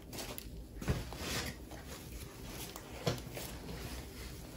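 Soft rustling of a knitted sweater being unfolded and spread out by hand, with two light knocks, one about a second in and one about three seconds in.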